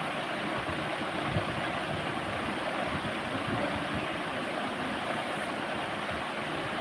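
Steady rushing noise with a few soft, low knocks.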